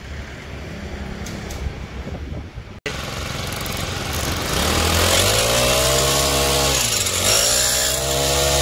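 Small GX35-type four-stroke brush-cutter engine on a mini boat motor running. About five seconds in its revs climb as the throttle is opened, drop briefly, then climb again.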